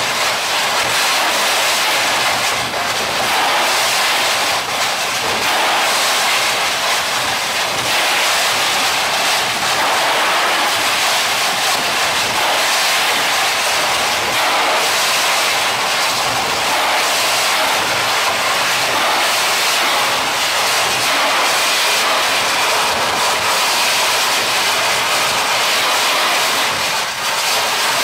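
Hydrodemolition robot's ultra-high-pressure water jet blasting into a reinforced-concrete wall: a loud, steady hiss that does not let up.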